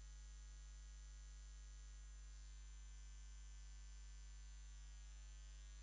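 Near silence with a faint, steady mains hum.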